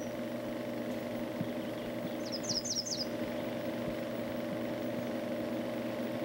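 A small songbird singing one short phrase of several quick, high, slurred notes about two and a half seconds in, with a faint single note at the very start. A steady low hum runs underneath.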